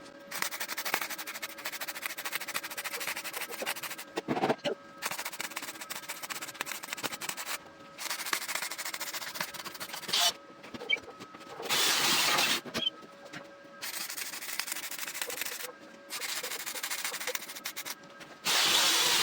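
Gasless flux-core wire-feed (MIG) welder arc crackling and sputtering in a run of short welds, each one to three seconds long, stopping and restarting about seven times.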